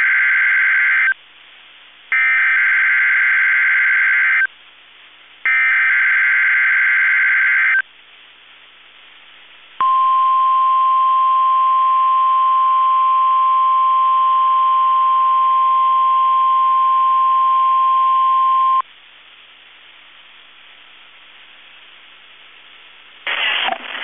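Emergency Alert System SAME header data bursts on NOAA Weather Radio: harsh digital screeching in three bursts of a couple of seconds each, the first already under way. After a short gap comes the 1050 Hz weather radio warning alarm tone, a steady high tone held for about nine seconds, which sets off weather alert receivers. It is heard through a thin-sounding web audio stream, with a synthesized announcer voice starting just before the end.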